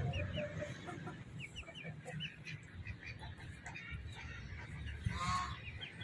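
Cochin (Heavy Buff) chickens clucking softly with short chirping notes, and one louder call about five seconds in.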